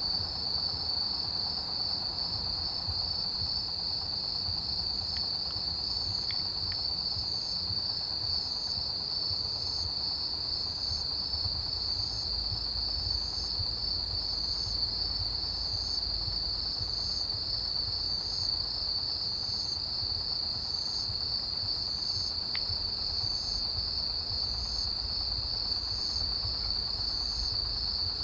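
Chorus of autumn field crickets and other grass insects. One steady, unbroken high trill dominates, while fainter, higher chirps from other insects pulse about once a second over it.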